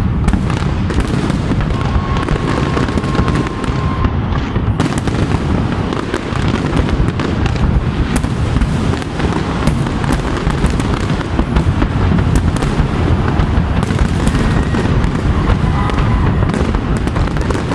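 Aerial fireworks shells bursting continuously, a dense run of overlapping bangs and crackles with no pause.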